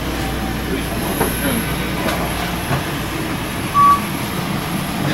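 Steady machinery rumble of an airport apron beside a parked regional jet, with a faint high whine and scattered small clicks. A short beep sounds a little before the end.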